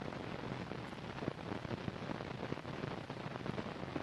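Steady hiss with scattered crackle from an old film soundtrack, with no distinct machine sound or rhythm.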